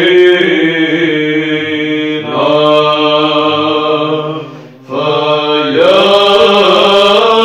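Monks singing Byzantine chant in Arabic: a melody moving over a steady held drone (the ison). The voices break off briefly about two-thirds of the way through, then resume.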